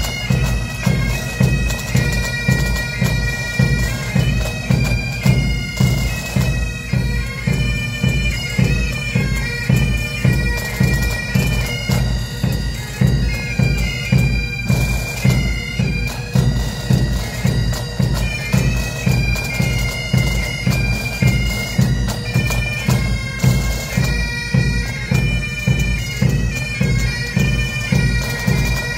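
Pipe band playing: Highland bagpipes sounding a tune over their steady drones, with drums keeping a regular beat underneath.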